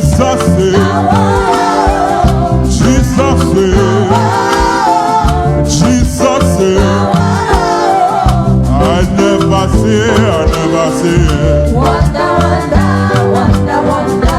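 Live gospel praise band playing, with bass, keyboard and drums under singing voices at a steady beat.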